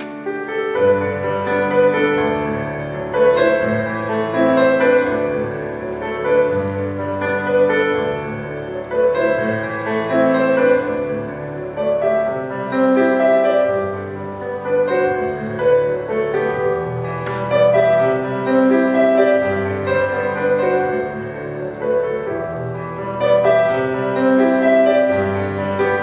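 Piano music with held chords that change every second or two.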